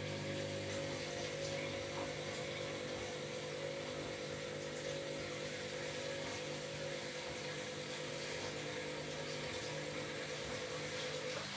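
Washing machine running in its wash cycle: a steady motor hum with a faint wash of water, which cuts off shortly before the end.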